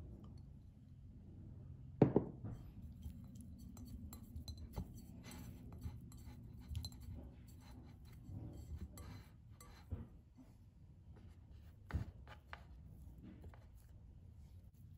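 Kitchen prep sounds over a low steady hum: a sharp knock about two seconds in, then light clinks and scraping of utensils against a bowl, with two more knocks later on.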